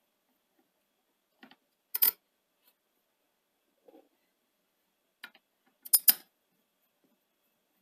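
Sharp metallic clinks and taps of a small screwdriver against the metal head drum and chassis of a Sony SL-HF100 Betamax VCR. A loud double clink comes about two seconds in and another about six seconds in, with fainter taps between.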